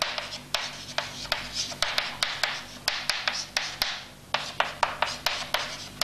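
Chalk writing on a blackboard: scratchy strokes with many sharp taps as the chalk meets the board, several a second, with a brief pause about four seconds in.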